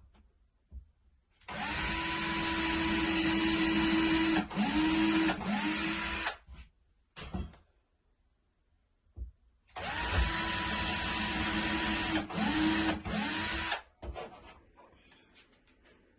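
Power drill drilling holes into the wall at marked spots: two runs of about five and four seconds of steady motor whine, each ending with brief releases of the trigger where the pitch drops and climbs back up.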